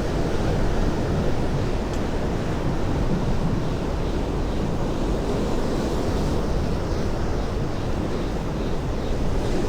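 Sea waves washing steadily, mixed with wind blowing on the microphone.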